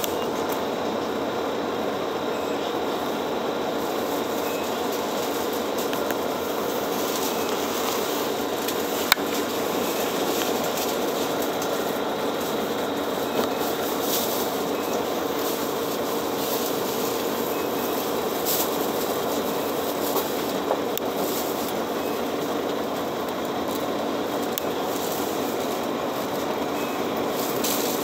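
A city bus idling while stopped, giving a steady engine hum with a few held tones, and a single sharp click about nine seconds in.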